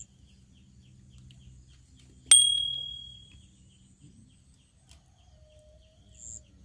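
Small fishing-rod bite bell ringing once, a sharp high ding about two seconds in that fades away over about a second: the signal of a fish pulling on the line. Faint steady insect ticking and a few short high chirps underneath.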